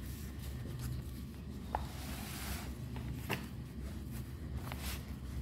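Notebook paper being handled: a brief rubbing rustle and a few light clicks, over a steady low hum.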